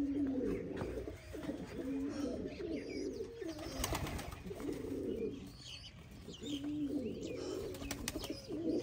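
Domestic pigeons cooing in a coop: low, repeated coos about every one and a half to two seconds. A few faint clicks come about halfway through.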